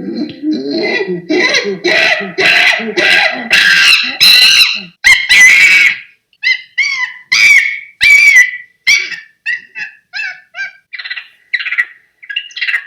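Monkey calls: a run of hoots that grows louder over the first few seconds, then short, shrill screeches in quick succession that thin out and fade toward the end.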